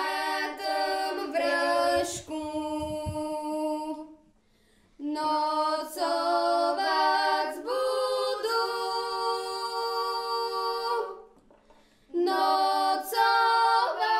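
Unaccompanied singing in long held notes, in three phrases separated by short pauses.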